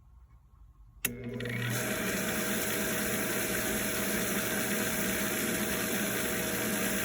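Pool pump switching on with a sharp click about a second in, its motor spinning up over under a second and then running steadily with water rushing through.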